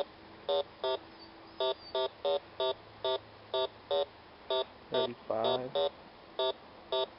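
A Bounty Hunter 3300 metal detector beeping over a buried target: about sixteen short beeps of one pitch, two or three a second and unevenly spaced, as the coil passes back and forth over a signal worth digging.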